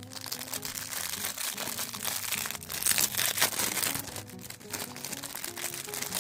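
Plastic packaging crinkling and rustling as it is handled and opened, loudest about halfway through, over background music.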